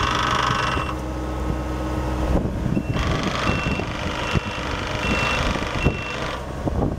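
Case CX36B compact excavator's Yanmar three-cylinder diesel running, with a loud engine and hydraulic whine for about the first second that then drops away. From nearly three seconds in, an alarm gives five short, evenly spaced beeps as the machine tracks over gravel, with clanks and crunches from the rubber tracks.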